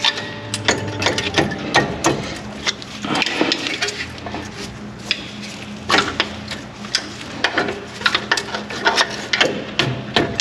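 Irregular metallic clanks, clicks and rattles as a rear brake caliper is worked loose and pulled off its bracket by hand.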